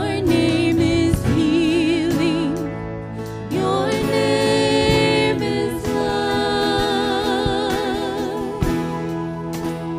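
Worship band performing a slow praise song: female voices singing long, held notes with vibrato over keyboard and steady low accompaniment.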